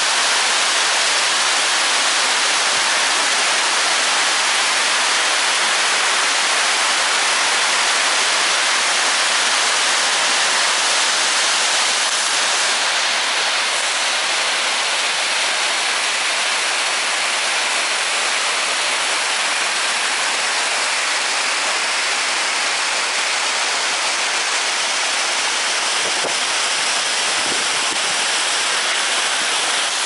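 A tall waterfall pouring down stepped rock ledges: a loud, steady rush of falling water, easing slightly about halfway through.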